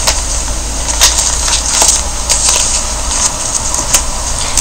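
Steady low hum and hiss of a noisy voice recording, with a few scattered clicks.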